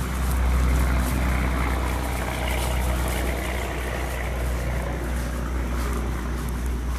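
An engine running steadily with a low rumble, swelling slightly about a second in.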